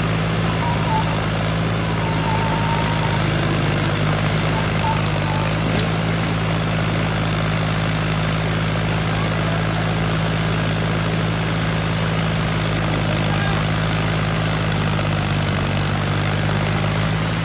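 Diesel engines of a Mahindra Scorpio SUV and a farm tractor running hard under load in a tug of war, a continuous steady drone.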